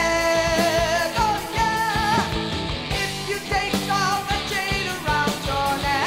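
Recorded 1981 rock band music playing, with a steady drum beat under a melodic lead line.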